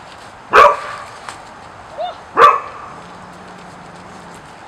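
Blue merle Australian Shepherd puppy barking in play: two sharp barks about two seconds apart, with a short yip just before the second.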